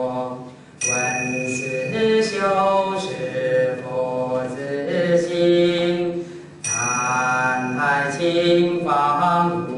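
A monk's male voice chanting Buddhist verses in Chinese to a slow melody, in long held notes. The phrases break briefly, with a new phrase beginning about a second in and another just before seven seconds.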